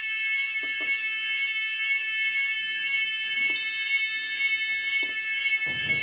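Finsécur type 4 fire alarm sounding its evacuation tone: a steady, high-pitched tone throughout, with a few faint clicks.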